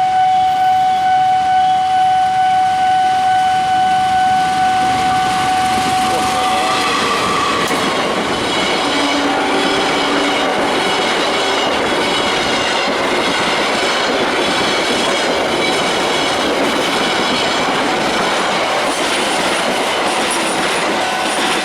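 A railroad crossing's warning alarm sounds as one steady electronic tone. About seven seconds in, a passing train drowns it out with loud wheel and rail rumble and regular clickety-clack over the rail joints.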